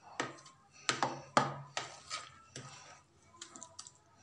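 Spoon knocking and scraping against a white ceramic plate while thick pea-flour batter is stirred by hand, in a string of irregular knocks that turn to fainter ticks near the end.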